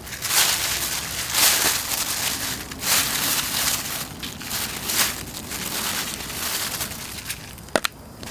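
Thin plastic bag crinkling and rustling in repeated bursts as a hand works garlic salt into raw iguana meat inside it, with two sharp clicks near the end.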